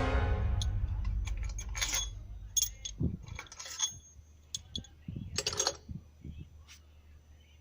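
Background music fading out, then scattered small metallic clinks and clicks of tools and metal parts being handled, with a few louder clusters about two and five seconds in.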